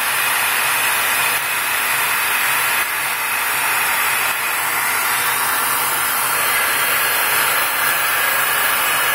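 Omniturn CNC lathe turning the outside diameter of a metal part, the tool peeling off stringy chips, under a steady hiss of the air and oil-mist lines blowing on the cut.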